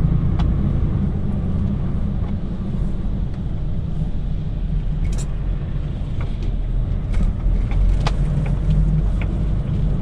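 DAF truck's diesel engine running at low speed, heard from inside the cab as a steady low rumble, with a few light clicks.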